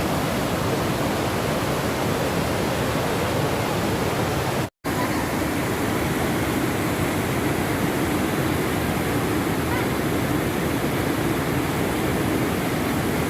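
Waterfall: a steady rush of falling water that drops out for an instant about a third of the way through, then carries on.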